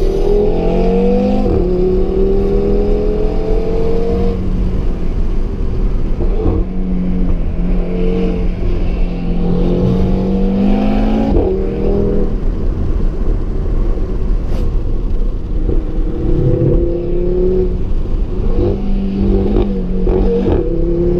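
2017 Audi TT RS's turbocharged 2.5-litre five-cylinder engine, heard onboard, pulling hard. Its pitch climbs under acceleration and then drops sharply several times, with steadier stretches between pulls.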